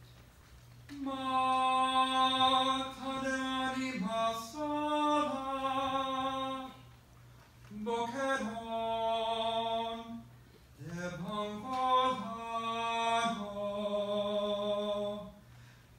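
A solo male voice singing unaccompanied in three long phrases with short pauses between them, holding notes and sliding between pitches.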